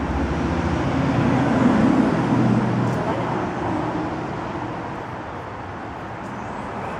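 A motor vehicle passing on a road: its engine hum and tyre noise swell to a peak about two seconds in, then fade away.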